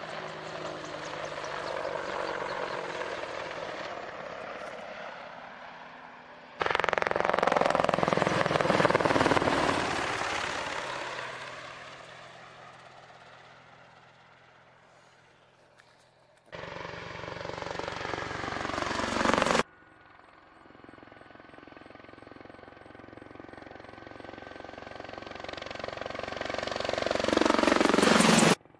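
AH-64D Apache Longbow attack helicopter in flight, its rotor blades beating rapidly over the whine of its twin turboshaft engines. The sound swells as it approaches and fades as it passes, with the pitch dropping on one pass, and it jumps abruptly between passes several times. It is loudest near the end, as the helicopter passes overhead.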